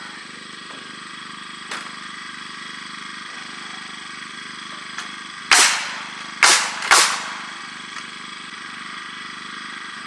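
Three sharp bangs of framing work about halfway through, one and then two more close together, over a steady machine hum.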